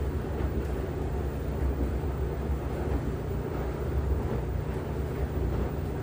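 LG washing machine running with a steady low hum and rumble.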